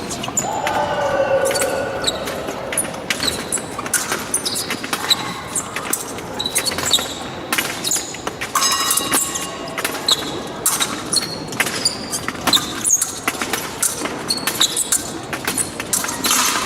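Fencing footwork during an épée bout: shoes squeaking on the piste, with many sharp clicks and knocks from steps, stamps and blade contact, and a brief pitched sound about a second in.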